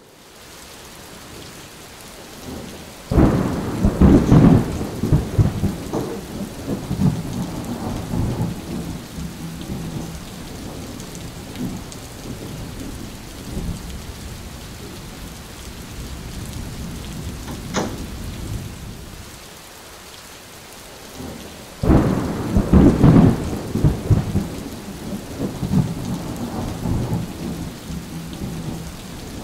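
Steady rain with two loud rolls of thunder, the first about three seconds in and the second just past twenty seconds, each rumbling on for several seconds before dying back into the rain.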